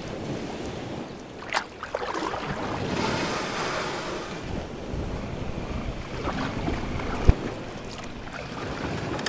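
Sea water splashing and lapping against a small boat's hull, with wind buffeting the microphone. There is a brief sharp sound about a second and a half in and a hard knock near the end.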